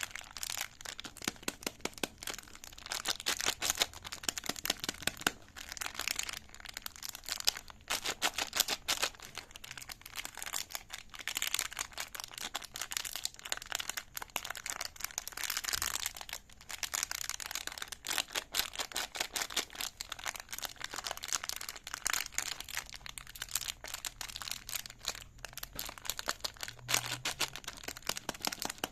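Crinkly plastic wrapper around a big spiral lollipop being handled and opened, with dense, irregular crackling throughout.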